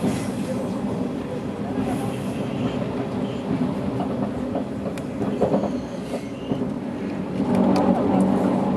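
KTX train running, heard from inside the passenger cabin: a steady rumble of wheels on rail and air, with a few light clicks, growing louder near the end.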